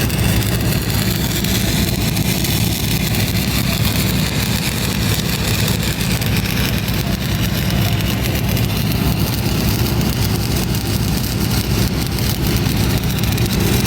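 An engine running steadily, a low drone with a constant hiss over it.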